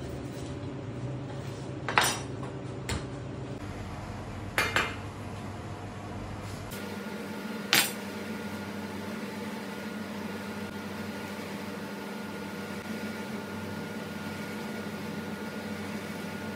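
A knife and cuts of swordfish knocking and clacking on a plastic cutting board: a handful of sharp knocks in the first half, over a steady kitchen hum.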